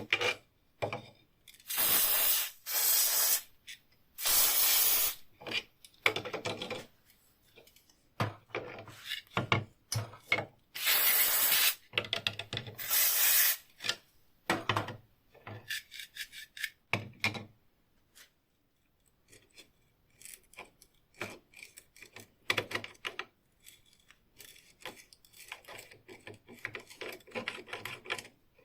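Hand rubbing strokes of an abrasive against the rusty metal of old wire cutters, in hissy bursts of about a second each, with clicks and knocks of the tool being handled in between.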